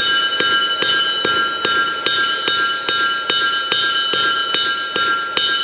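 Hand hammer striking hot chisel steel on an anvil at a steady pace of about two and a half blows a second, the anvil ringing on between blows while the piece is shaped.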